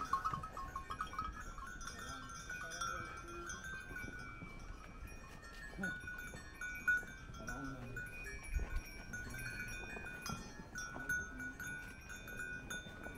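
Many small bells jingling steadily and overlapping, as worn by goats or sheep moving along the trail.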